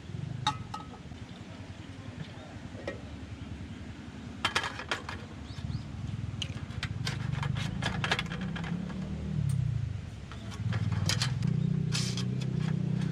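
Wood fire crackling, with irregular sharp pops and snaps, over a continuous low hum.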